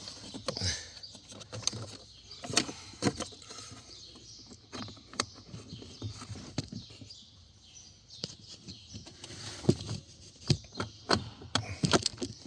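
Irregular clicks, knocks and small squeaks of the plastic glove box and its damper rod being handled and pushed while being worked back into place.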